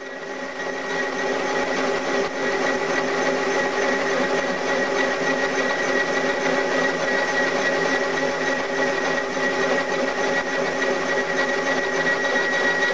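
Vertical milling machine spindle spinning up over the first second or so, then running steadily with a boring head cutting a bore in an aluminium block: a constant mechanical whine with a high, steady ringing tone.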